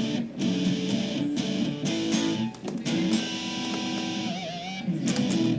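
Electric guitar played through a Boss SD-2 Dual Overdrive pedal: picked notes and chords, with one held note given vibrato a little past four seconds in.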